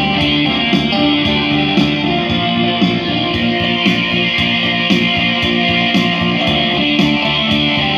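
Instrumental passage of a song played through loudspeakers: electric guitar melody over a steady drum beat.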